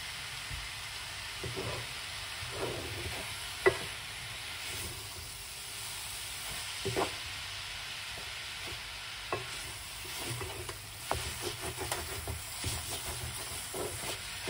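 Wooden spoon stirring cauliflower rice in a metal pot over a steady sizzle of frying. Short knocks and scrapes of the spoon against the pot come now and then, the sharpest a few seconds in, and more often in the second half.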